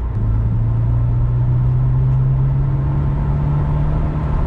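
Volkswagen Golf GTI Mk2's 1.8-litre eight-valve four-cylinder engine accelerating hard, heard from inside the cabin, its note rising smoothly and steadily in pitch. This is a test pull of the repaired fuel supply, with the engine pulling without a stumble.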